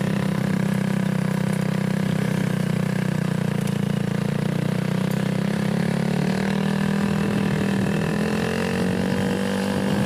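Motorcycle engine running steadily under way, heard from on the bike, its pitch rising slowly from about six seconds in.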